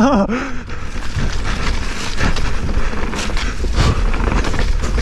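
Wind buffeting the helmet-mounted microphone, with the clatter and rattle of a mountain bike's tyres and frame over rocks and gravel on a fast descent.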